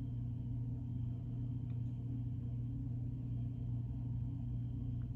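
Steady low hum that keeps an even level, with no other clear sound over it.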